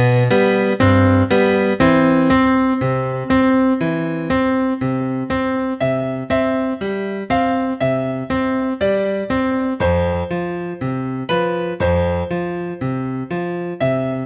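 Background piano music: a steady, even run of single notes, about three a second, over lower bass notes, each note struck and dying away.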